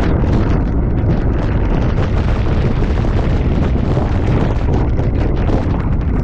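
Wind buffeting the microphone of a camera on the roof of a fire engine moving at highway speed: a loud, steady low rumble with constant rapid fluttering.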